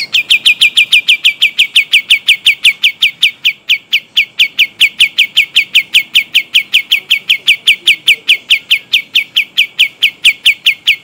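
Kapas tembak bird singing a long unbroken roll of identical short whistled notes, each sliding down in pitch, about five a second and very even, running for about eleven seconds before stopping.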